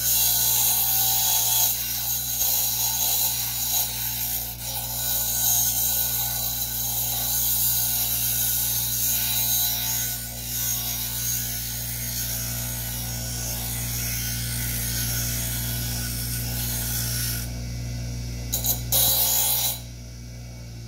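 Bench grinder running with a steady motor hum while a steel hacksaw blade is ground against the wheel, a continuous hissing rasp as its teeth are ground off and the end tapered. The grinding breaks off about three seconds before the end, with one brief last touch, and then only the grinder's hum is left.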